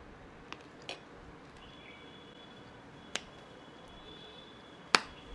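Quiet room tone broken by a few short, sharp clicks, the loudest just before the end, with a faint high steady tone coming and going.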